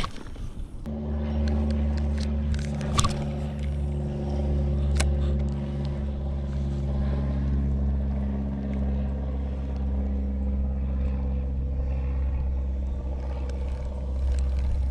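A motor running steadily at one even pitch, starting about a second in, with a couple of faint clicks about 3 and 5 seconds in.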